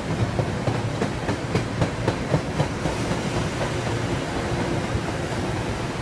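Metro-North M3A electric multiple-unit train rolling past with a steady rumble. Its wheels click in quick succession over the rail joints during the first three or four seconds.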